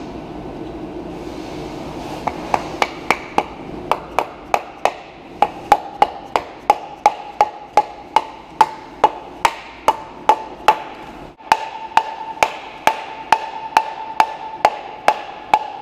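Rubber mallet striking a polyurethane bushing as it is driven into the aluminium rear differential cover of a BMW E36. The blows come in a steady run of about two to three a second, with a brief pause about eleven seconds in, and each blow leaves a short ring from the metal housing.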